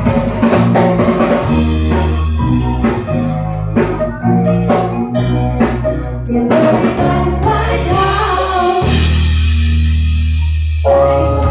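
Loud pop music with drums and bass, with singing. Near the end a cymbal-like wash builds up and then cuts off.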